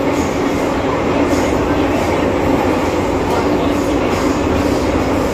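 First-generation MTR M-Train, a Metro-Cammell electric multiple unit, running steadily between stations: a continuous rumble of wheels on rail under a constant hum.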